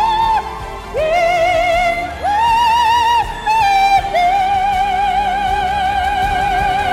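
A man singing English lyrics in a very high, clear, soprano-like voice. He holds long notes with a wide, even vibrato and slides up into each new phrase, and the last note is held for about three seconds.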